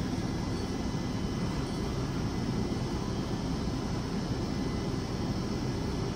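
Steady rushing hum inside a stationary Yokohama subway 3000R car with its doors open at a platform: the train's air-conditioning and onboard equipment running while it stands, with a few faint steady whining tones above the rush.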